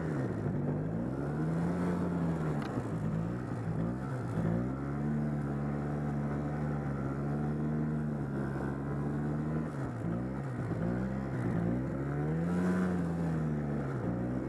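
ATV engine running under throttle while circling in snow, its pitch dropping and climbing back several times as the rider eases off and opens up again, with steady stretches between.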